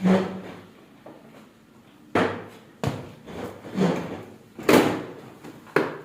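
A series of sharp knocks at irregular intervals of about a second, six in all, each dying away quickly.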